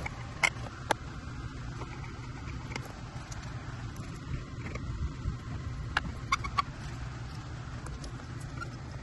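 A few sharp clicks and taps from a hand screwdriver and screws, two near the start and three in quick succession about six seconds in, as the compartment cover under the e-bike's battery is screwed back on. A steady low rumble sits underneath.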